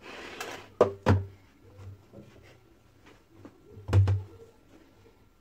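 Kitchen handling noise: a brief rustle, then two sharp knocks about a second in and a louder knock with a dull thud about four seconds in, as kitchenware is put down or bumped on the counter.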